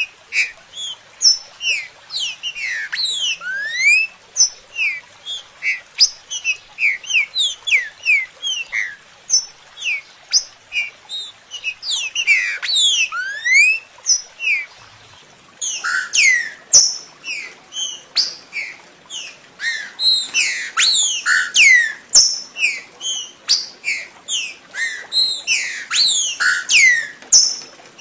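Green-winged saltator (trinca-ferro) song: a fast, dense run of short whistled notes, mostly slurring downward and often overlapping, with a brief lull about halfway through.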